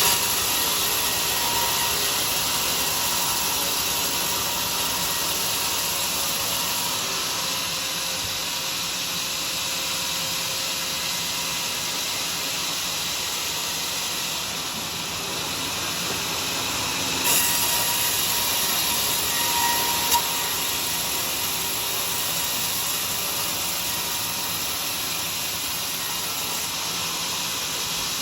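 Homemade sawmill running steadily as it saws a durian log: a constant high hiss with a faint steady whine. The level jumps briefly about two-thirds of the way through, with a sharp tick a few seconds later.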